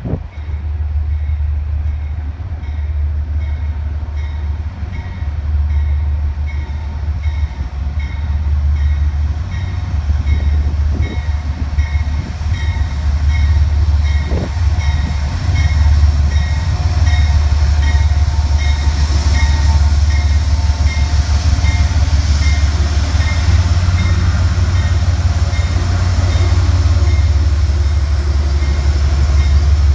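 Amtrak passenger train behind a GE Genesis diesel locomotive approaching and rolling past, its engine and wheels growing louder about halfway through. A bell rings steadily about once a second.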